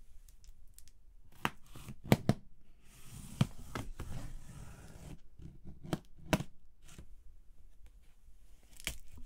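A knife slicing packing tape on a cardboard box, with a scraping, tearing stretch about three seconds in and several sharp taps and knocks of the blade and hands against the cardboard.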